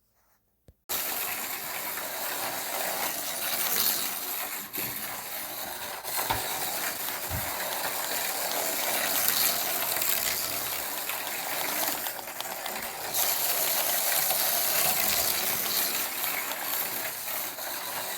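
Micro slot cars running on their plastic track: small motors and gears whirring and rattling continuously, starting abruptly about a second in and swelling and fading as the cars come and go.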